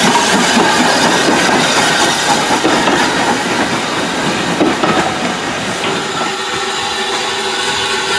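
Hunslet 14-inch saddle tank steam locomotive and its carriage running past close by, wheels on the track with steam hissing. The sound eases slightly after about six seconds as the train draws away.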